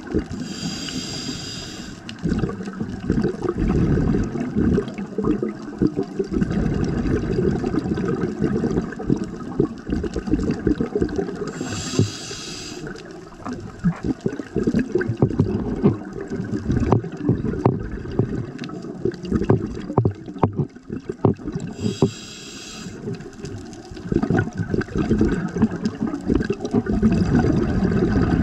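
Scuba diver breathing through a regulator underwater: a short hiss of inhalation about every ten seconds, with a bubbling, crackly rumble of exhaled air between the breaths.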